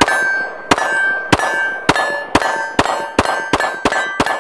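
Rapid semi-automatic fire from a Glock 17 9mm pistol: about ten shots, roughly two a second and quickening toward the end. Each shot is followed by a short metallic ring from a steel target being hit.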